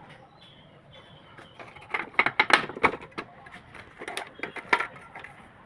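Godrej Prima manual typewriter clacking in quick runs of sharp strikes, a dense burst about two seconds in and a sparser one about four seconds in, as the machine is worked.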